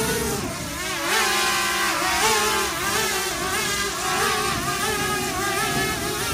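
Small quadcopter drone hovering low, its propellers giving a steady whine whose pitch wavers up and down as it holds position.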